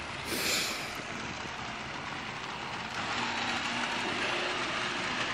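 Model locomotive running on the layout track after its throttle is raised, a steady running noise with a faint motor hum that comes in about three seconds in. A short hiss sounds near the start.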